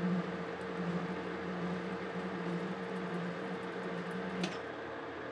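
Metal lathe running under power while a single-point threading tool takes a pass on a coarse thread in a steel shaft: a steady hum with the hiss of the cut. A click about four and a half seconds in, after which the low hum drops away.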